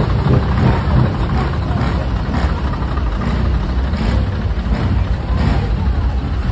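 Big diesel truck engines idling steadily, a constant low engine sound.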